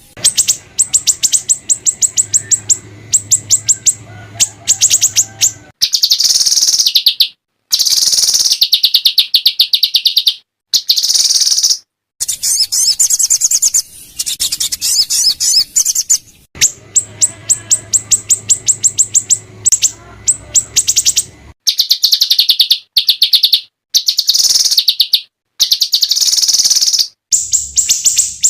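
Small songbirds singing loudly in rapid, harsh trills of fast repeated high notes, alternating with buzzy chattering phrases. The song breaks off abruptly several times with short silent gaps, as in an edited compilation of recordings.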